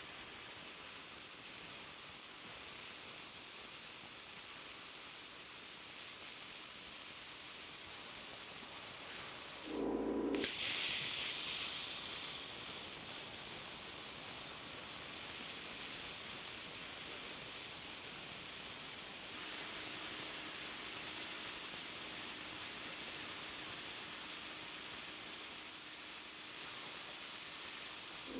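Plasma cutter cutting sheet steel: a steady, loud hiss of the arc and air jet. It stops briefly about ten seconds in and starts again.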